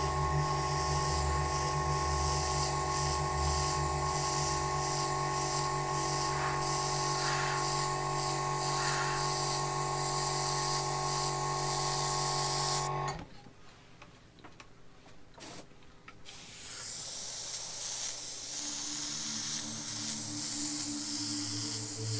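Steady hiss of an airbrush spraying paint, with a steady hum underneath. Both cut off suddenly about thirteen seconds in, and the hiss comes back some three seconds later.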